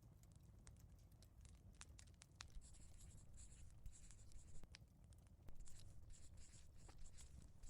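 Faint pencil scratching on paper, coming in two spells, over the low rumble and scattered crackles of a fireplace.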